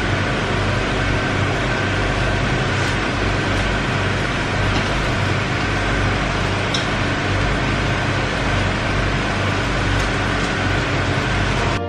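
Loud, steady machine drone with a low hum underneath, unchanging throughout, cutting off abruptly at the very end.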